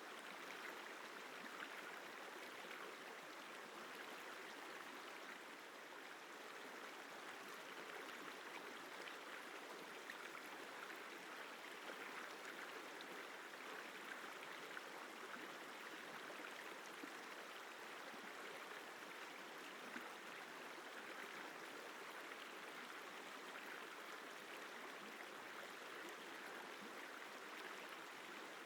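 The Isar River flowing: a quiet, steady, even rush of water, with hardly any deep rumble.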